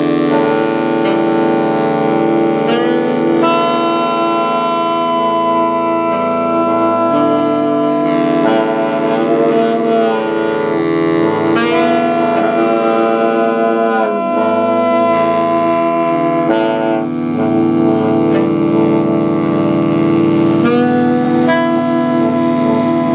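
A saxophone ensemble of baritone, tenor, alto and soprano saxophones playing long held notes together in a dense, loud chord that shifts now and then, with a few notes sliding in pitch.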